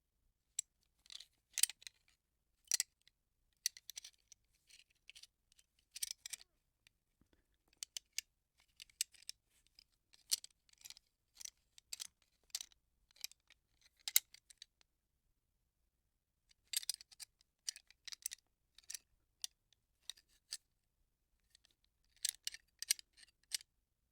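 Gun parts being handled: small metal parts clicking, clacking and sliding against each other in irregular clusters of sharp clicks, with a pause of about two seconds a little past the middle.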